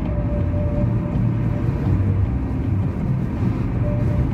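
Car driving along a road, heard from inside the cabin: a steady low rumble of engine and tyres on the road surface.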